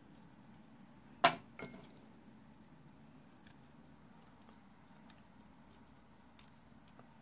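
A sharp click about a second in, followed closely by a softer one with a brief ring, over a faint steady low hum.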